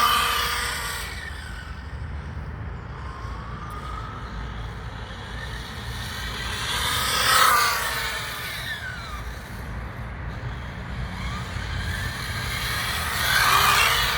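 Kyosho Fazer MK2 1:10 electric RC car with a brushless motor passing close three times, about six seconds apart, its motor whine rising and falling in pitch with each pass, over tyre noise on the ground.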